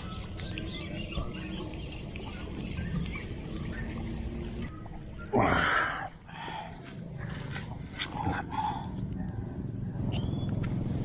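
A hooked snakehead being landed on a grassy bank. Rod, reel and grass handling noise sits over a steady low rumble. One loud burst of noise, under a second long, comes about five seconds in, followed by lighter knocks and rustles as the fish is taken in hand.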